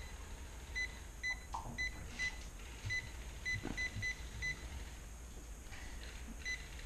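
Touch-sensitive LED desk lamp beeping at each tap on its touch controls as its brightness is stepped down and up. There are about ten short, high beeps at uneven spacing, several close together around the middle and a last one near the end.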